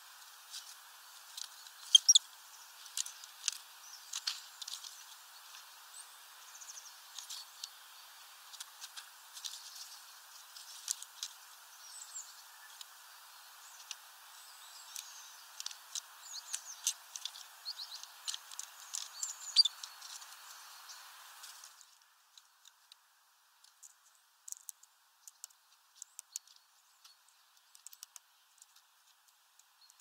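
Great tits and blue tits at a feeder: scattered short, high chirps and ticks, some in quick runs, over a steady hiss. The hiss cuts off abruptly about 22 seconds in, leaving only a few faint ticks.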